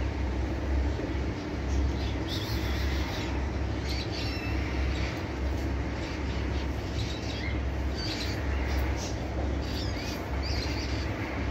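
Young kittens giving short, high-pitched squeaky mews now and then, over a steady low rumble.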